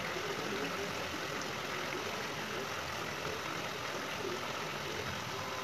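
Steady hiss of egg gravy simmering in a pan on a gas stove.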